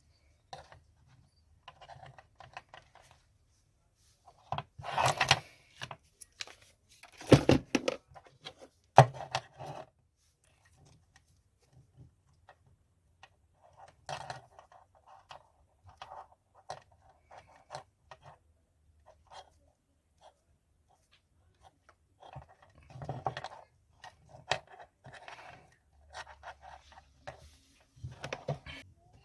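Scattered scraping, clicking and knocking of parts and tools being handled at a workbench, with a few louder scrapes and knocks about five to nine seconds in.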